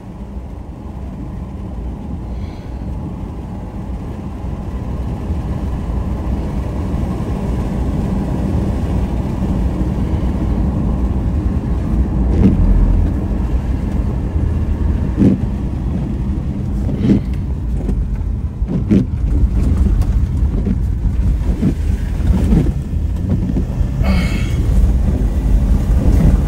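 Road noise inside a moving vehicle's cabin: a steady low engine and tyre rumble that builds as it speeds up, with several sharp knocks or thumps in the second half.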